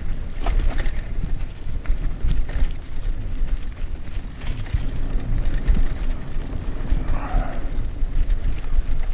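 Wind rumbling on an action camera's microphone together with a mountain bike's tyres rolling over a dry dirt trail, broken by frequent sharp clicks and rattles from the bike jolting over bumps.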